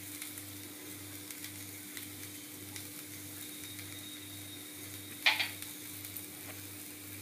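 Faint steady sizzle from a still-hot wok of roasted sprouted black gram, with a low hum under it and one brief rustle about five seconds in.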